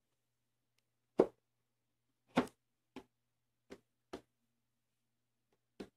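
About six separate knocks and clunks, the loudest about a second in: a router on its mounting plate being set down into the opening of a router table.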